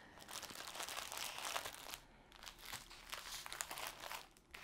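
Plastic wrap around bundled strips of diamond-painting drill bags crinkling and rustling as they are pushed across a table and lined up side by side. The crackling pauses briefly about two seconds in and again just before the end.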